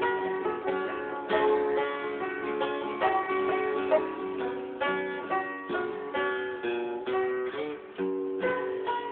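Acoustic guitar and banjo playing a tune together, with a steady flow of picked notes.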